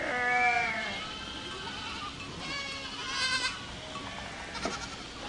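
A herd of goats bleating: a loud bleat falling in pitch right at the start, a quavering bleat about three seconds in, and fainter bleats near the end.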